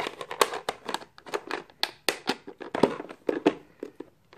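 Plastic parts of a robot vacuum's dust collector being handled by hand: a quick run of clicks, knocks and rattles as the bin and cover are taken off and fitted back.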